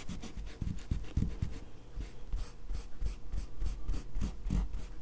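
Rag dampened with mineral spirits rubbed back and forth over a firearm's paint-filled engraving, wiping off the excess paint in quick, rhythmic strokes that slow a little after about two seconds.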